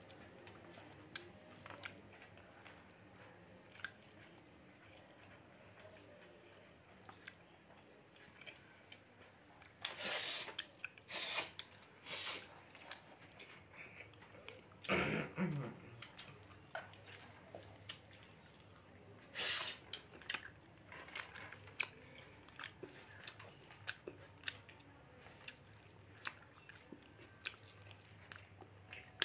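A person chewing food close to the microphone, with small wet mouth clicks throughout. Several louder sudden mouth sounds come about a third of the way in, around the middle and about two-thirds of the way in.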